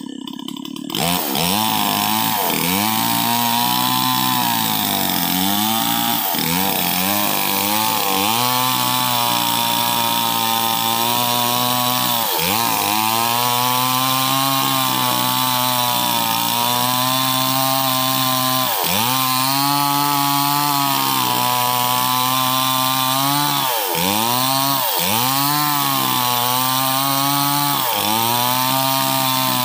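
Stihl MS 381 two-stroke chainsaw at full throttle, ripping lengthwise along a large log. The engine pitch sags and recovers again and again as the chain loads up in the cut. It comes in loud about a second in.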